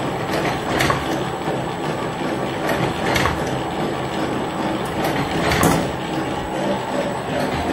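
Rheon KN200 encrusting machine running with a steady mechanical whir, with a sharper clack repeating about every two and a half seconds.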